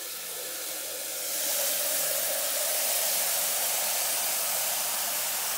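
Water spraying from a hose nozzle into a metal pail, filling it: a steady rushing hiss that grows louder about a second and a half in.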